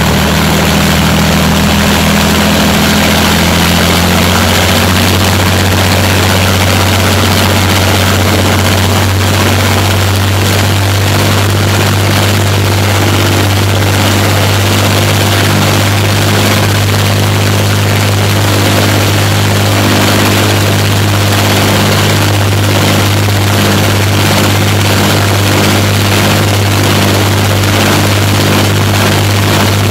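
Two Rolls-Royce Merlin V12 aero engines running together on ground test trailers, propellers turning, with a steady, loud engine drone.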